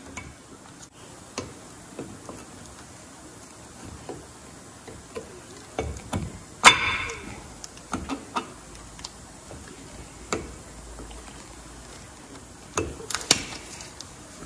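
New front brake pad being worked by hand into the spring clips of the caliper bracket: scattered small metal clicks and scrapes, with one sharper click about halfway and a quick run of clicks near the end.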